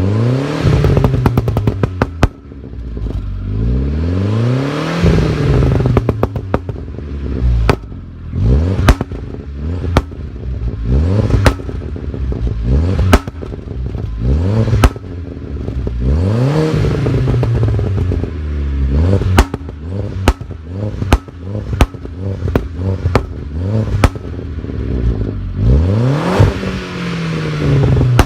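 Skoda Octavia RS 1.8-litre turbo four-cylinder (AUQ engine), decatted with a Layting rear muffler, revved over and over. As each rev falls away, the exhaust lets out sharp pops and bangs on overrun, many in quick succession through the middle of the run.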